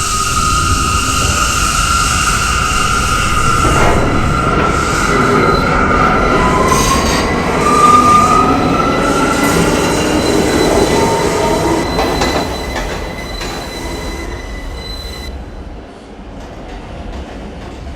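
R179 subway train running through the tunnel, with high-pitched squealing tones over a rumble and a tone that rises from about six to nine seconds in. It grows quieter after about twelve seconds.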